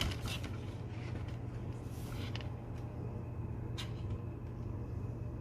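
Steady low hum with a few faint clicks of handling noise, including one about four seconds in.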